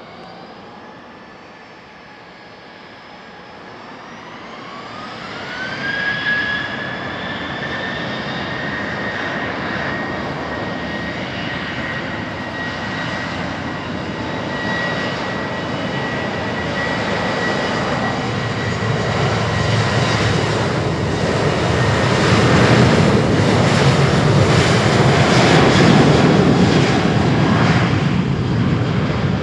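Boeing 737-700's twin CFM56-7B turbofans spooling up from idle to take-off thrust: a whine climbs in pitch about four seconds in and then holds steady. The take-off roll follows, the jet roar growing louder and deeper as the airliner passes, loudest near the end.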